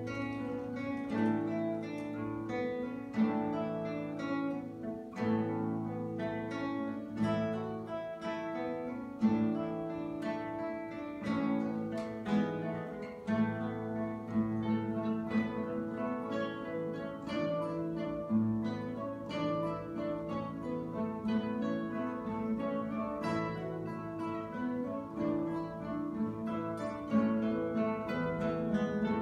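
A guitar orchestra playing: many acoustic guitars plucking and strumming a lively tune over a steady, sustained low drone, arranged in imitation of Galician bagpipes.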